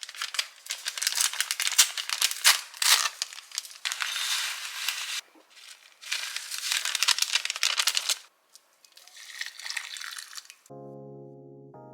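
Plastic grocery bags crinkling and rustling in irregular bursts as they are handled. Soft keyboard music with held notes starts near the end.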